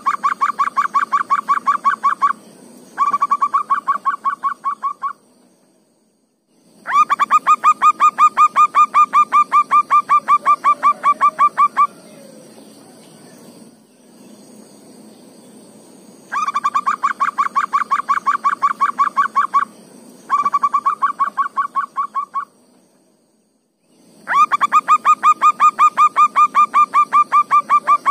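Zebra dove (perkutut) cooing in bouts of rapid, evenly pulsed notes, about six a second. Each bout lasts two to five seconds with short pauses between, repeated over and over.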